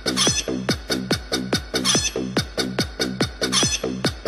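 Electronic dance track built from chicken clucking and crowing sounds over a steady kick-drum beat of about two and a half beats a second.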